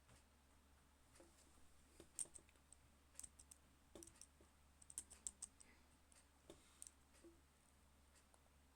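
Faint computer keyboard typing: irregular, sharp keystroke clicks, thickest in the middle, over a steady low hum.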